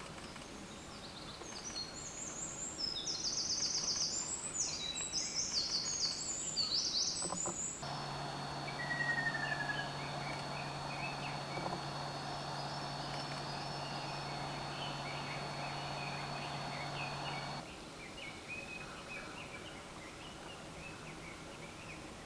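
Wild birds calling in woodland: a run of loud, high, rapid chirping calls for the first several seconds, then softer scattered calls. From about eight seconds in to about eighteen seconds in, a steady hum runs under the calls.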